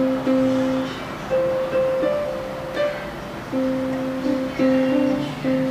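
Music: a guitar-like plucked-string melody of steady, clearly separated notes.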